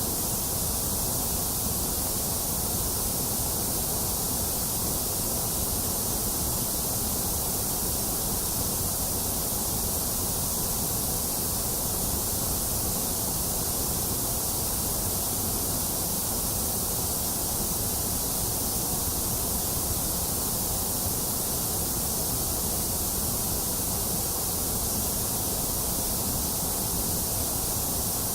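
Steady white noise: an even, unchanging hiss, brightest in the treble, with a hollow dip in the middle.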